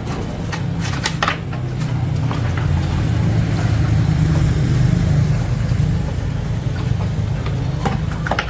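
A low, steady engine-like rumble that swells about midway and then eases off, with a few light clicks over it.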